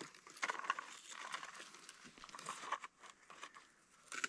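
Faint rustling, scraping and small clicks of a nylon strap being wrapped and pulled tight to fasten a Stealth Cam trail camera to a tree trunk, with a sharper click near the end.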